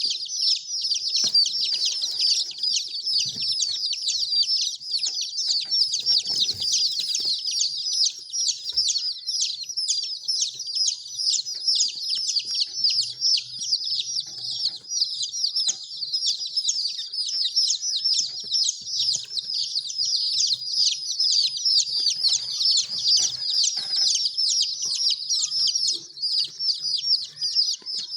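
A brood of baby chicks peeping nonstop: many short, high chirps, each falling in pitch, overlapping into a continuous chorus.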